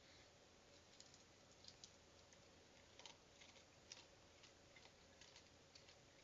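Near silence with faint, irregular small clicks and taps scattered through it, the strongest about three and four seconds in, over a low steady hiss and hum.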